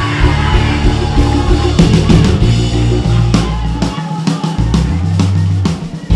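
Loud band music: drum hits over held bass notes.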